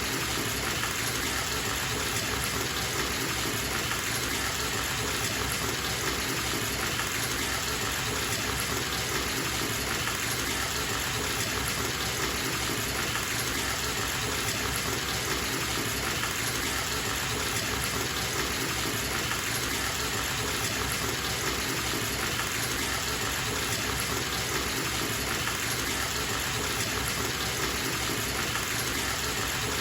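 Bathtub filling from a running tap: a steady rushing of water pouring into the tub, unchanging throughout.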